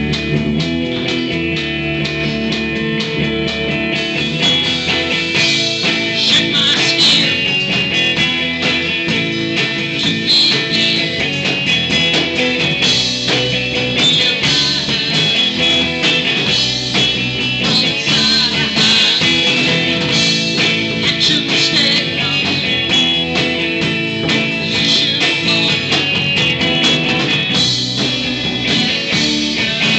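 Live rock band playing loudly: electric guitar and drum kit in a continuous full-band passage.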